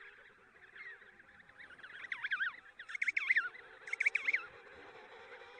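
Emperor penguin chick giving high, rapidly warbling whistle calls in three quick bursts, about two, three and four seconds in, over the faint steady calling of the rest of the colony.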